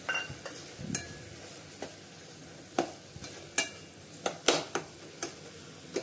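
Steel spoon scraping and clinking irregularly against a metal pot while stirring curdled-milk solids (chhena) with sugar over a gas flame. Steady sizzling runs underneath.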